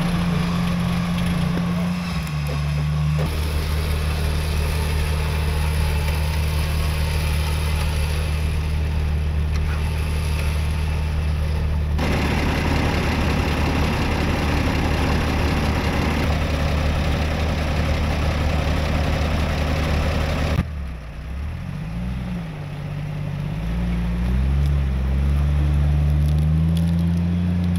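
A vehicle engine running steadily, its pitch stepping down about three seconds in, with a rush of noise added from about twelve seconds in. After a sudden change about twenty seconds in, the engine's pitch rises and falls as it is revved.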